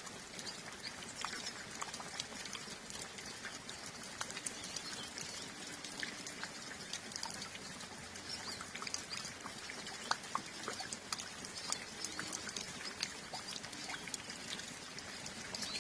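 Calm, steady rain with water drips pattering and ticking throughout, while a flock of hooded siskins sings in high chirps.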